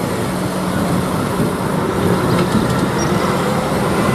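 Concrete mixer truck's diesel engine running with a steady low hum.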